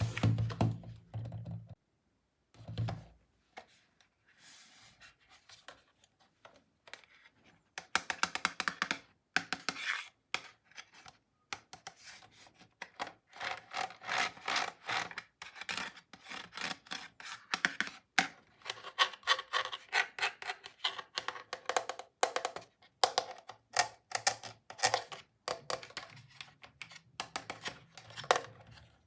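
Hands handling plastic toy tools and their packaging: a busy run of small clicks, knocks, rubbing and scratching, with short pauses.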